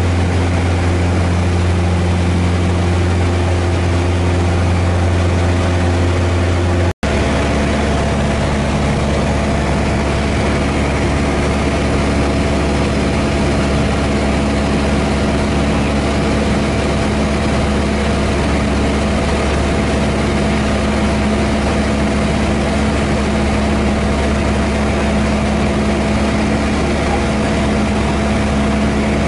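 Steady drone of a light airplane's piston engine and propeller, heard inside the cockpit. About seven seconds in, the sound breaks off for an instant and resumes in a slightly different tone.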